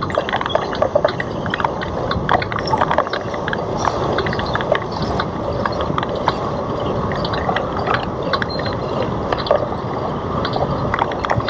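Wind rushing over the camera microphone on a moving Citi Bike, with frequent irregular small clicks and rattles from the bike over the pavement.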